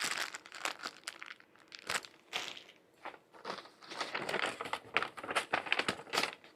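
Crinkling and rustling of packaging as wrapped syringes and alcohol-wipe packets are handled and sorted, in irregular bursts with a sharp click about two seconds in.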